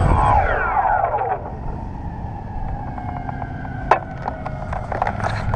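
DJI Phantom quadcopter motors and propellers spinning down in a falling whine, then running on at a lower steady hum while the drone is held in hand. A sharp knock comes about four seconds in, with more handling clicks near the end.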